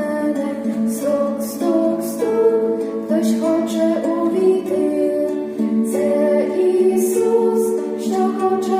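A Ukrainian religious song sung in held notes with a plucked string accompaniment.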